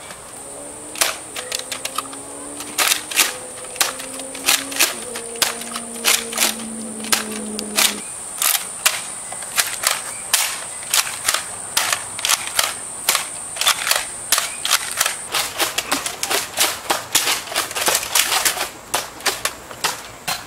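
Nerf foam-dart blasters firing in a rapid, irregular volley of sharp pops, several a second at times. A thin, high steady tone runs underneath until about three quarters of the way through.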